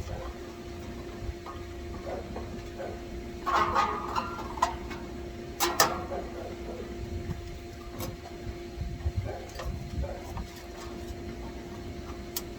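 Scattered clicks and short bouts of metallic clatter from parts and hand tools being handled during a condenser fan motor replacement, over a steady hum.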